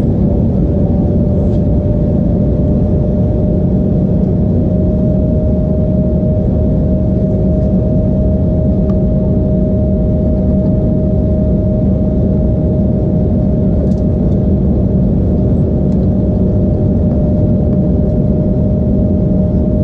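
Steady cabin noise inside an Embraer E175 in flight: airflow and the drone of its GE CF34 turbofans. An engine tone holds steady and rises slightly in pitch about a second in.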